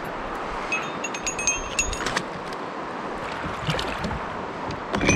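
Small clinks and knocks of fishing gear being handled in a kayak's storage well, with a cluster of light ringing clinks about a second in and sharper knocks later, over a steady wash of river and wind noise.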